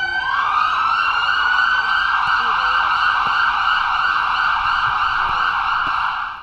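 Fire engine sirens wailing together, their pitch rising in the first half-second and then holding in one steady, dense wail that cuts off suddenly at the end.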